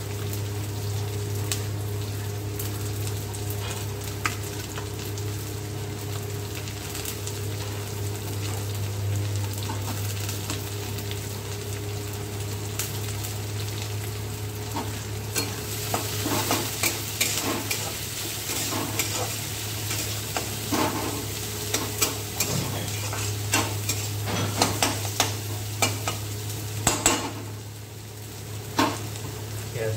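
Sliced onions sizzling and frying in hot oil in a black kadai, over a steady low hum. From about halfway, a metal spatula scrapes and clacks against the pan as the onions are stirred.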